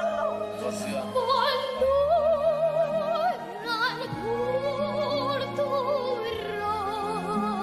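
A young girl singing in an operatic style, holding long notes with a wide vibrato, over an orchestral accompaniment.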